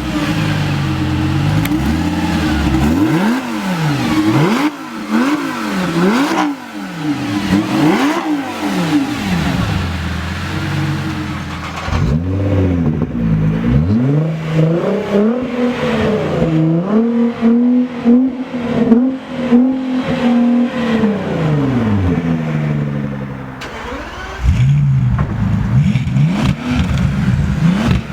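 Sports car engines revved repeatedly at standstill: a run of quick revs that rise and fall, then longer revs held high around the middle, and a different engine idling and blipping near the end.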